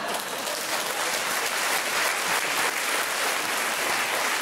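Studio audience applauding steadily in response to a joke.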